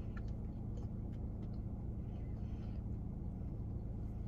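Steady low hum inside a car cabin, with a few faint clicks of chewing.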